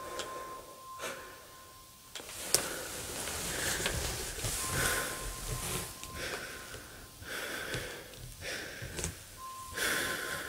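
Rustling and handling noise as cloth, paper and plastic bags are moved about, in short repeated bursts. A faint steady high tone comes and goes three times.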